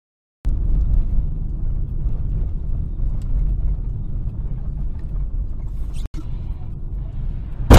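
Steady low road and engine rumble of a car driving, heard inside the cabin through a dash cam's microphone, starting about half a second in. Near the end comes one loud, sudden thump.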